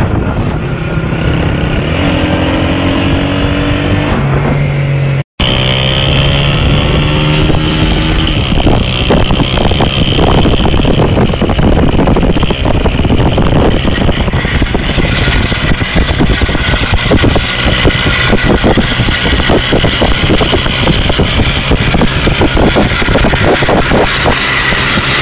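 Small motorcycle engine running and revving, with rising pitch as it picks up speed, during a back-wheel wheelie, heard over wind noise. The sound cuts out for an instant about five seconds in.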